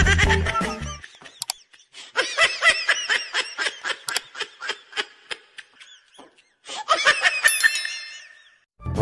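High-pitched laughter sound effect: a rapid run of short 'ha-ha' bursts, about five a second. Near the end comes a brief high ringing ding.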